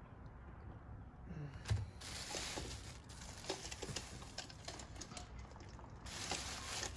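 Hands working mirror assembly parts: a run of small clicks and taps with a low thump a little under two seconds in, and rustling twice.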